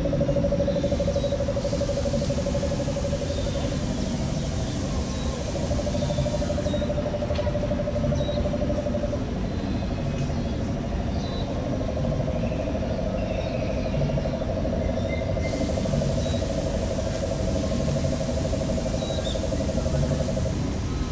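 Jungle-style ambient soundscape of animal and insect calls played through the area speakers: a steady, pulsing trill in three long stretches, with a high insect-like hiss in two spells, over a constant low outdoor rumble.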